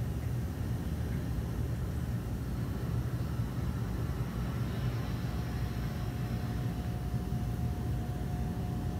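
Steady low hum and rumble of reef aquarium equipment: pumps and circulating water. A faint steady whine joins about halfway through.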